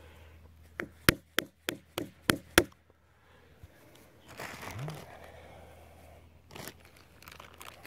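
Seven sharp taps, about three a second, as a metal-tipped hand tool is driven into a drilled hole in a tree trunk's bark. A short rustle follows a couple of seconds later.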